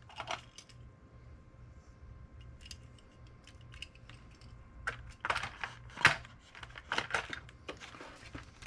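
Clicks and light knocks of a die-cast metal toy truck cab and trailer being handled and set into a cardboard box. A few faint clicks at first, then a cluster of sharper clicks from about five seconds in, loudest about six seconds in.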